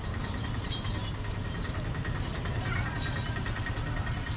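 Metal chains hanging on a walking Asian elephant clinking and jangling irregularly as it passes, over a steady low background rumble.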